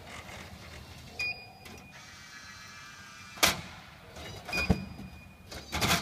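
A vending machine's product lift and shelf conveyor at work: a small motor whirring while a milk carton is pushed along the shelf onto the lift, with sharp clunks at about three and a half seconds, near five seconds and near the end. Two short beeps sound, about a second in and again after four and a half seconds.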